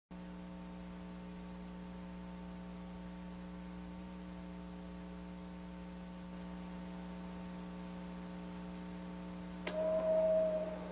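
Steady electrical hum with a faint high whine. Near the end there is a click, then a brief steady tone.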